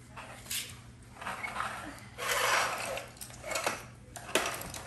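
Plastic toy vehicles handled and rolled over a tile floor: a few short scraping rattles and sharp clicks.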